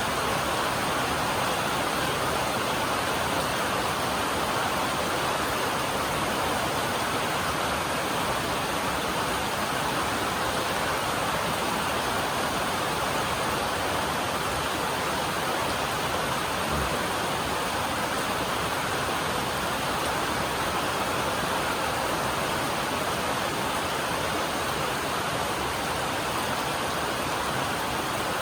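Steady heavy rain drumming on a metal roof, an even rushing hiss that does not let up.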